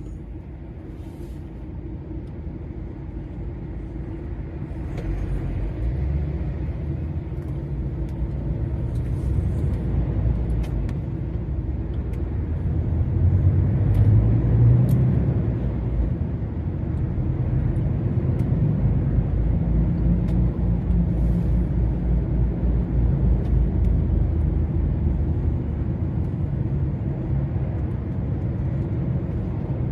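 DAF XF 480 lorry's diesel engine and road noise heard from inside the cab while driving on the motorway: a steady low rumble that swells louder about halfway through.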